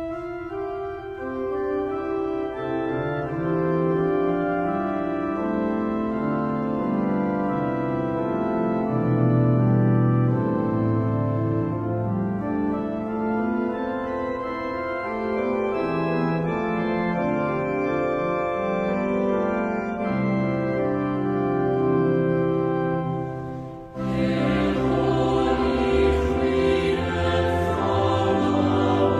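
Organ music playing slow, held chords. About 24 seconds in it breaks off for a moment and comes back fuller and brighter.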